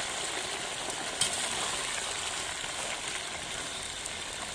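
Whole crayfish deep-frying in hot oil in a wok: a steady sizzling hiss, with one short knock about a second in.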